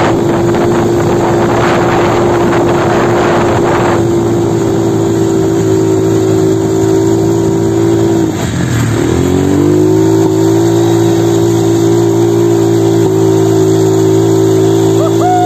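Quad bike (ATV) engine running at steady high revs carrying two riders, with wind rushing over the microphone for the first few seconds. About eight seconds in the revs drop sharply and then climb back up to a steady pitch.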